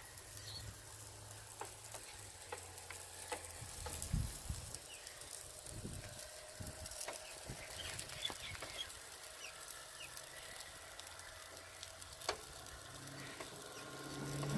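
Food sizzling in a frypan over a charcoal fire: a steady hiss with scattered crackles and pops, two of them louder.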